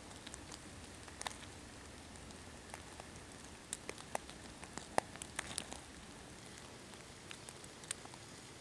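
Wood campfire crackling, with irregular sharp pops and snaps over a soft hiss; the loudest pop comes about five seconds in.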